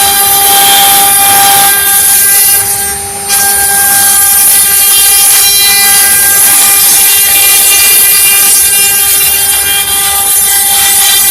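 CNC wood carving router spindles running at high speed and cutting wood: a steady high whine over a loud hiss of cutting. The tones drop out briefly about three seconds in, then resume.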